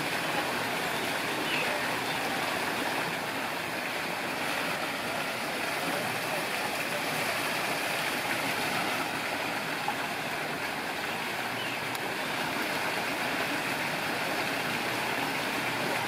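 Steady rush of water from a small rock waterfall splashing into a pool.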